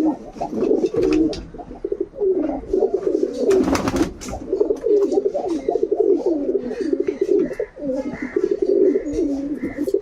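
Domestic pigeons cooing continuously in low, wavering, throaty calls, with a brief noisy burst about four seconds in.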